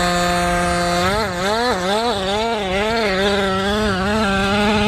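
Gas two-stroke engine of a 1/5-scale Kraken VEKTA RC trophy truck with a tuned pipe. It holds a steady high note, then from about a second in its revs rise and fall about twice a second.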